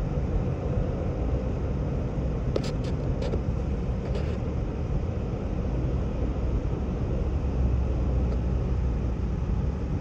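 Steady low road and engine rumble inside a moving car's cabin on a wet, slushy road, with a few short clicks between about two and a half and four seconds in.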